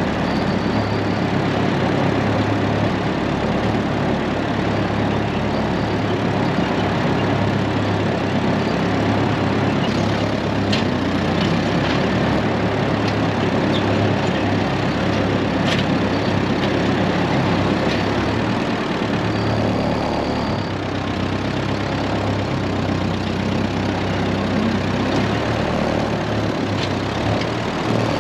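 1948 Ford 8N tractor's four-cylinder flathead engine running steadily, driving a PTO finish mower.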